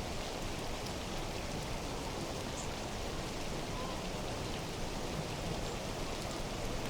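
Steady, even rush of water, with a few faint drips and ticks over it.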